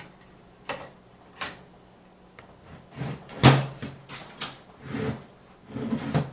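A hard drive knocking and clicking against a computer case's drive mount as it is pushed into place on its rubber grommets: a series of short knocks, the loudest about three and a half seconds in.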